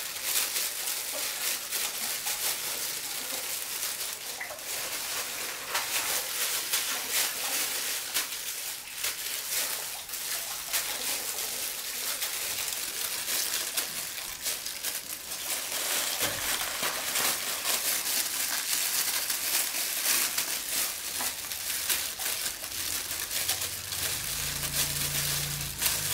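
Thin plastic gloves crinkling and rustling in irregular crackles as gloved hands tear ripe jackfruit flesh into strips.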